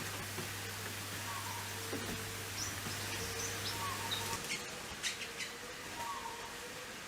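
Birds chirping: short, high chirps repeating every second or two, with a few higher quick notes. Underneath is a steady low drone, and there are a couple of sharp clicks about five seconds in.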